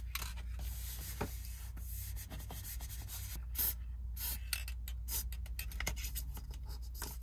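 Hands rubbing and handling a can of spray glue, with scratchy friction noises and a few short sharp bursts, over a low steady hum.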